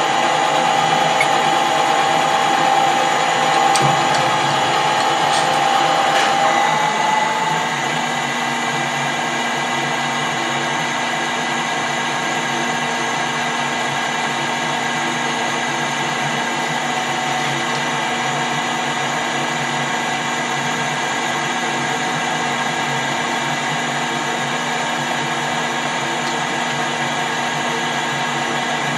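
Metal lathe running steadily, a machine hum with many fixed tones. For the first seven seconds or so a strong high whine sounds over it, rises slightly and then stops.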